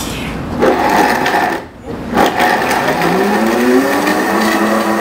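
Commercial Vitamix blender under its sound enclosure, blending a thick mix of a whole taco, ice cream and peanut butter. A rush of blending noise breaks off briefly, then the motor spins up with a rising whine and settles into a steady run.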